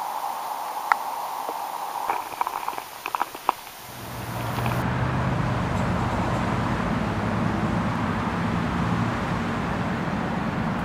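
Muffled underwater sound as a hand releases a small smallmouth bass, with a single click about a second in and a quick run of sharp clicks and knocks about two to three seconds in. About four seconds in, it gives way to a louder steady low rumble with a faint hum.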